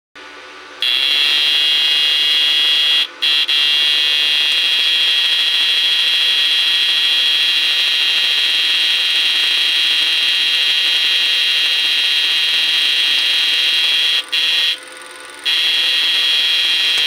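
Homemade 36-transistor, two-transformer electrofishing inverter whining at a steady high pitch while it drives a bank of halogen lamps as its load. It switches on about a second in and cuts out briefly twice, near three seconds and again near fifteen seconds.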